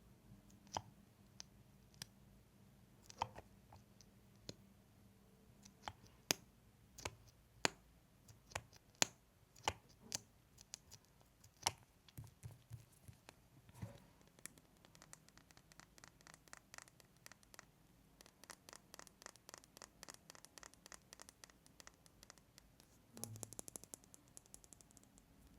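Close-miked mouth sounds: sharp wet clicks and lip smacks, scattered at first, then a fast run of small clicks, with a short wet burst near the end.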